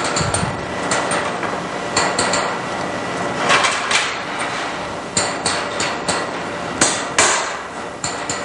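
Irregular metallic clinks and knocks of steel pliers and metal parts striking one another on a factory line, over a steady hum of machinery.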